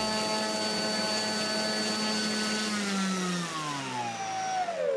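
Electric motor and propeller of a Hookll PT-17 RC biplane running at a steady pitch, then winding down with a falling pitch from about three seconds in as the throttle is cut. This is a bench run-up on a watt meter to measure the motor's current draw, about 25 A at full throttle.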